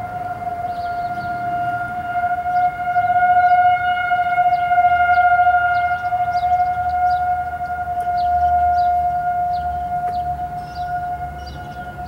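Distant outdoor tornado sirens sounding one steady, held wail that swells louder and eases off again.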